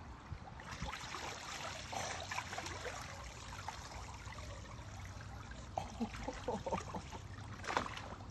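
Shallow water trickling and splashing in small, irregular sloshes.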